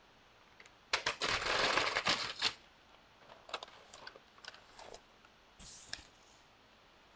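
Paper rustling as sheets of a spiral-bound notebook are handled: one loud rustle lasting about a second and a half, then several shorter, softer crinkles.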